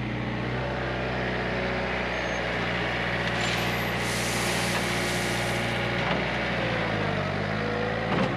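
John Deere 110 backhoe's engine running steadily. Near the end its note sags briefly and picks back up.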